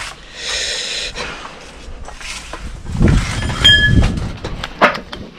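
Metal-on-metal work noises while a part is pried off the engine: a scrape, then rumbling knocks with a brief squeal about three and a half seconds in, and a few sharp clicks near the end.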